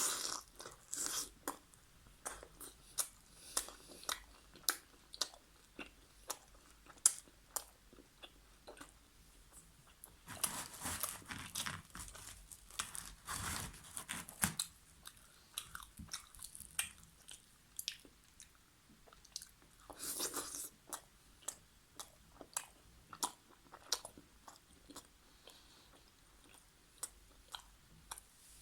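Close-miked eating of chicken karahi with naan: chewing and biting, with many sharp wet mouth clicks and crunches. Longer bouts of dense chewing come about ten seconds in and again around twenty seconds.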